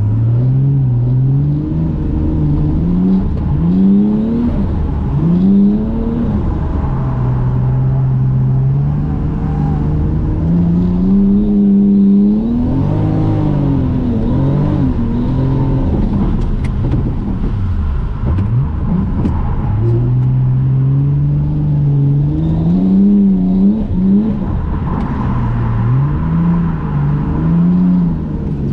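Toyota JZX100 Mark II's straight-six engine heard from inside the cabin while drifting, the revs rising and falling again and again. About two-thirds of the way through the revs drop low briefly before climbing again.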